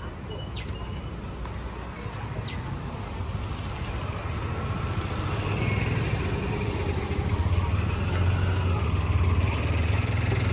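A motor vehicle's engine rumbling low and growing steadily louder, as if drawing near. A few short chirps sound in the first few seconds.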